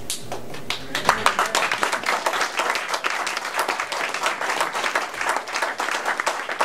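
Audience applauding: many hands clapping in a dense, irregular patter that breaks out suddenly.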